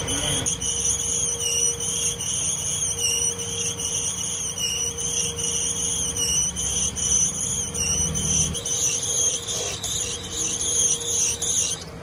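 Lathe running with a steady low hum and a high, wavering whine, typical of a tool cutting a Teflon workpiece. It cuts off suddenly at the very end.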